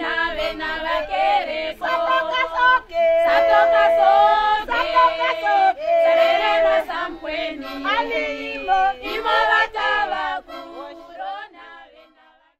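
A group of women singing a traditional song together in several voices; the singing fades away near the end.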